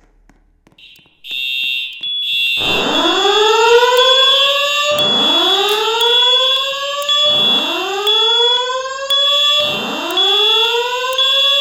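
Fire alarm voice-evacuation system sounding its alarm between spoken messages. A steady high-pitched tone starts about a second in. Then comes a whoop tone: a rising sweep that climbs and levels off, repeating four times about every two and a half seconds.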